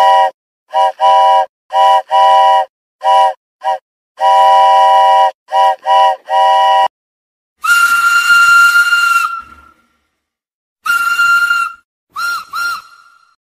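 Steam locomotive whistle sound effects: a multi-note chime whistle sounding a run of short and long toots, then a higher single-note whistle blown once long with a rush of steam hiss, once shorter, and in two quick toots near the end.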